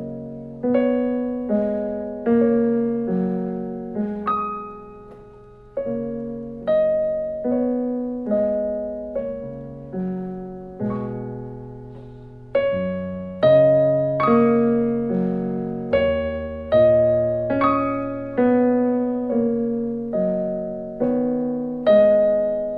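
Piano played as a student-and-teacher duet: a slow, gentle beginner piece with notes and chords struck about once a second, each ringing and fading before the next.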